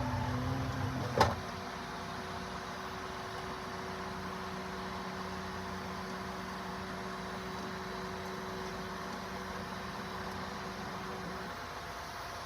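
A sharp click, then a steady machine hum with two constant tones that stops shortly before the end.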